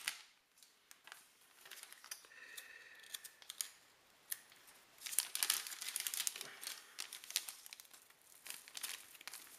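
Plastic sleeve of an MRE flameless ration heater being handled and torn open by hand, crinkling. It is faint at first, and the crackly crinkling thickens from about halfway.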